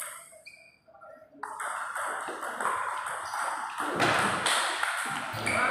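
Table tennis ball being hit back and forth in a doubles rally, clicking off the paddles and bouncing on the table; the hitting picks up after a short lull about a second and a half in.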